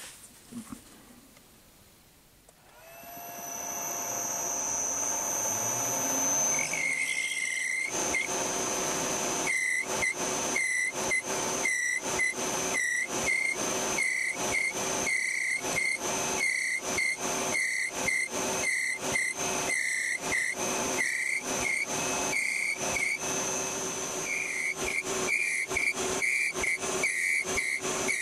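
Metal lathe starting up about three seconds in and running steadily with a whine. From about seven seconds in, a high squeal repeats about once a second or a little faster as the tool turns down a machine-tool pull stud.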